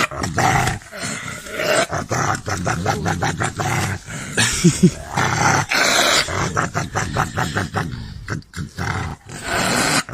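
A pet animal growling, mixed with many sharp clicks and knocks.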